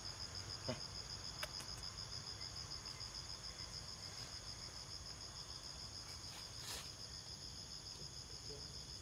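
Steady chorus of forest insects, a high, rapidly pulsing trill that runs on without a break, with a few faint clicks.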